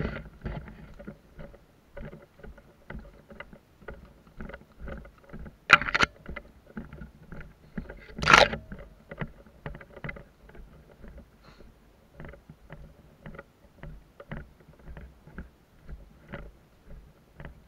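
Footsteps of a person walking over dirt and grass, about two a second, with the rustle and knock of worn gear at each step. Two louder rustling bursts come about six and eight and a half seconds in.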